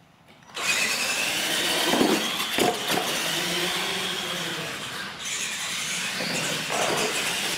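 Two radio-controlled monster trucks launching together and racing flat out, their electric motors and gear drivetrains whining, with tyres on concrete. The sound starts suddenly about half a second in, and there are a couple of knocks about two seconds in.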